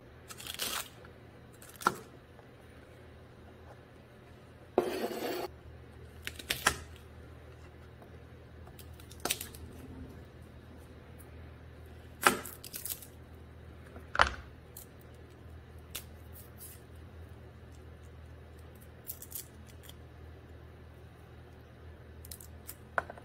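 Scattered taps and knocks of a hammered-blade cleaver on a cutting board as celery and then garlic cloves are cut, with one longer scrape about five seconds in.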